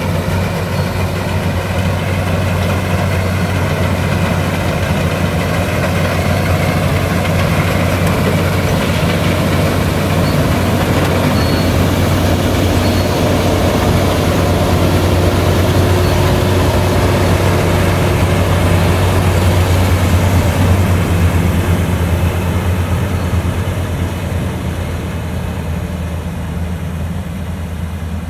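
Worldstar WS7.0 rice combine harvester's diesel engine and cutting machinery running steadily while harvesting paddy, with a strong low hum. It fades over the last several seconds as the machine moves away.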